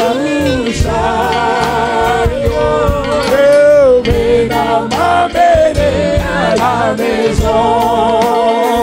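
Gospel song: a man singing long, wavering notes with a choir behind him, over bass and a steady beat.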